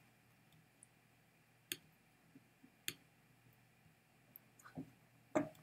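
Faint computer clicks as the screen-capture software is worked: a handful of short, irregular clicks, the two clearest about a second apart, then a few more near the end.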